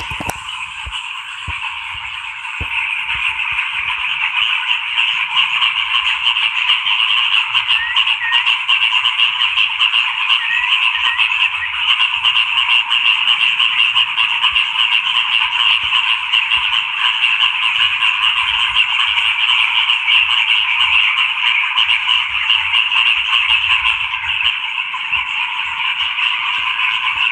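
A dense chorus of frogs calling without a break, many rapid pulsed croaks overlapping. It grows a little louder about two to three seconds in.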